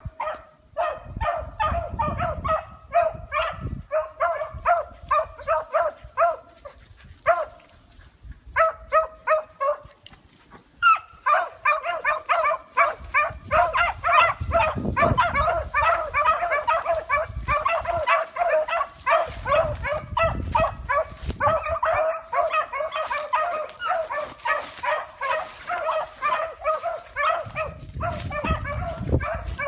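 A pack of hunting hounds giving tongue on a chase: rapid, repeated barking and baying from several dogs, in spurts at first and then overlapping almost without a break from about a third of the way in. A few low rumbles lie under the barking.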